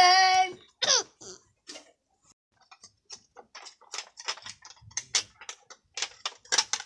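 Irregular sharp plastic clicks and clacks, several a second, from a plastic toy truck being handled and its parts worked. A child's voice is heard briefly at the start.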